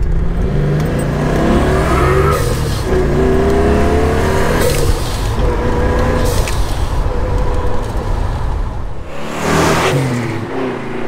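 Twin-turbocharged V8 of a 1957 Chevrolet Bel Air accelerating through the gears, its engine note climbing and dropping back several times. Near the end the car rushes past close by.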